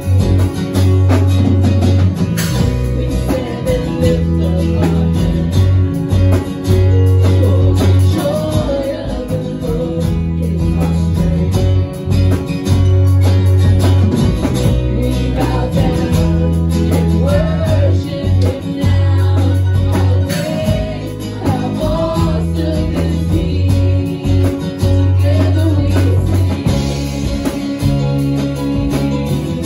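Live praise-and-worship band playing a song: a woman's lead vocal with a second singer, over acoustic guitar, electric guitar and drum kit, with strong sustained bass notes.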